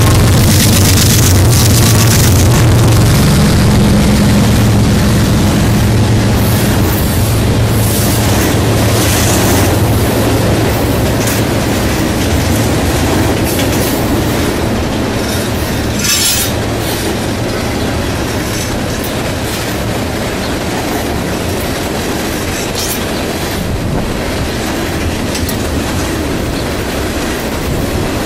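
BNSF manifest freight train rolling past close by, mostly tank cars, with a steady loud rumble and rattle of wheels on the rails. The diesel locomotives' low drone fades over the first ten seconds or so. A few brief high wheel squeals come through, the clearest about sixteen seconds in.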